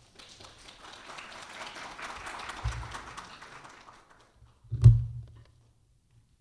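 Audience applauding, swelling and then dying away after about four seconds. A single loud thump about five seconds in.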